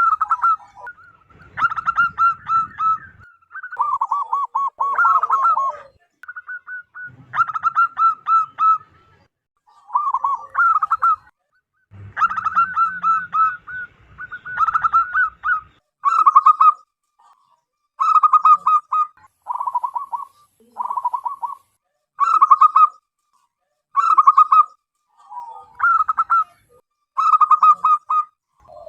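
Zebra dove cooing loudly: short phrases of quick staccato notes, repeated every second or two with brief pauses between them.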